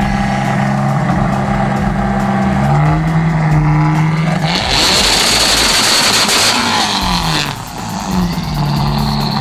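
An engine running at a steady speed, its pitch stepping up about three seconds in and falling back near the end. A loud burst of hissing noise lasts about two seconds in the middle.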